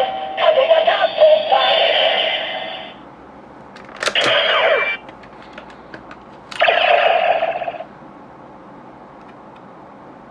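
DX Neo Decadriver toy belt playing its electronic sound effects and synthesized voice calls through its small speaker. The first sequence fades out about three seconds in; a sharp click comes about four seconds in with a short electronic sound, and another short call comes around seven seconds, followed by a few seconds of low hiss.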